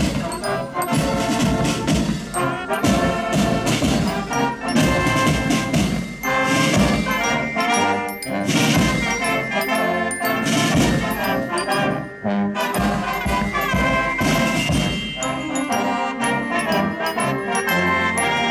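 Military band playing: brass instruments holding and moving through notes over steady drumming.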